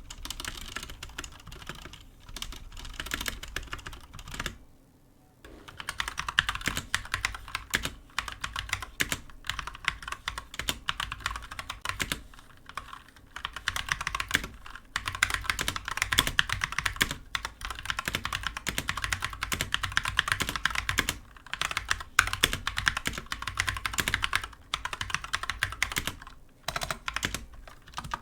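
Continuous fast typing on a full-size Glorious GMMK mechanical keyboard with Glorious Holy Panda tactile switches and HyperX pudding keycaps: a dense run of key clacks, with a pause of about a second roughly five seconds in and a few shorter breaks later.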